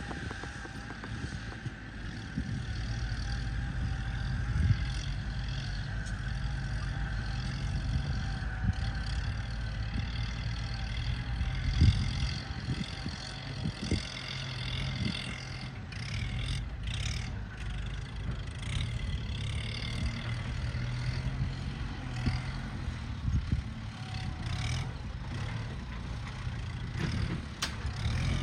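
An engine running steadily at an even speed, with a few short knocks and clicks over it.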